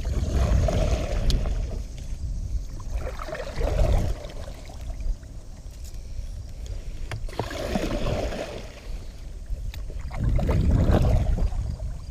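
Wind and water noise around a small fishing boat, surging four times.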